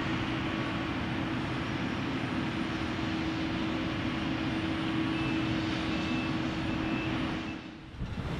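Heavy construction machinery running steadily, with a constant engine hum under a broad rumble. It cuts off about a second before the end.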